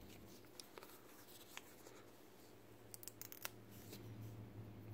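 Near silence: faint scattered ticks and rustles of fingers handling a thin servo cable and its small plastic connector over a paper sheet, bunched about three seconds in, over a low steady hum.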